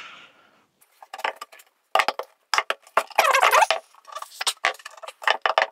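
Wooden workpieces being handled and tapped into a tight fit: an irregular run of light clattering knocks and clicks starting about a second in.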